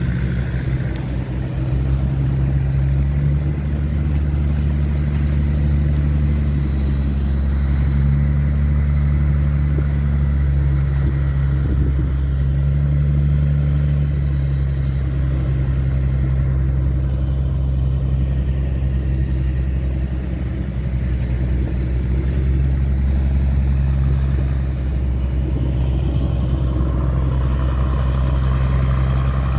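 Tugboat's diesel engine running steadily under way, a deep even drone.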